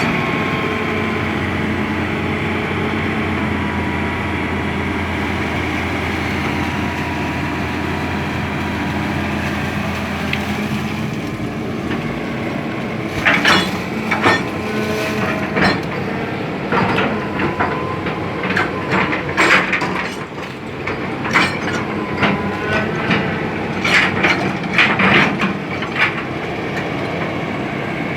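Hitachi hydraulic excavator's diesel engine running steadily. From about halfway in, repeated sharp clanks and knocks of the machine working cut in over the engine.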